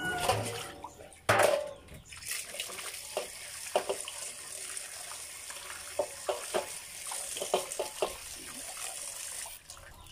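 Water splashes out of a stainless steel basin as it is tipped about a second in. Then a tap runs into the basin while hands rub and rinse salted duck intestines, with small splashes, until the tap stops near the end.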